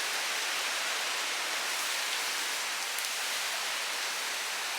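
Steady hiss of tropical-storm rain and wind.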